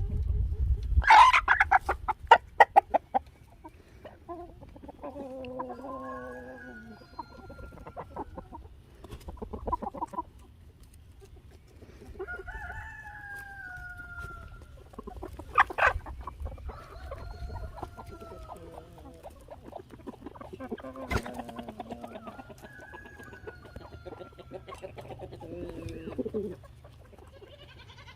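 Backyard chickens clucking, with a loud flurry of rapid squawks about two seconds in, then a rooster crowing several times in long, drawn-out calls.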